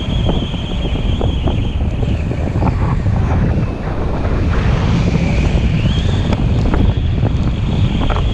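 Wind from a paraglider in flight buffeting an action camera's microphone: a loud, steady, low rumbling rush, with a thin, wavering high whistle above it.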